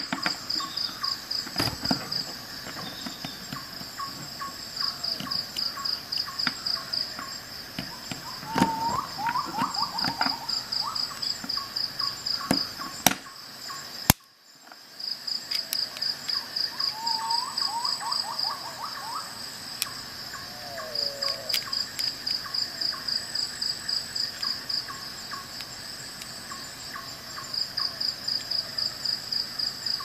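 Crickets chirping in long, even trains of about three chirps a second, with lower calls sliding down in pitch now and then and a few sharp clicks. The sound drops out briefly about halfway through.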